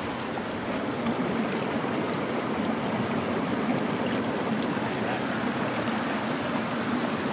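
Shallow mountain stream running over rocks: a steady rush of flowing water.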